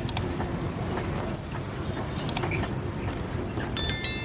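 Busy street ambience with motor traffic running past, steady and noisy with scattered clicks; a brief high ringing tone sounds near the end.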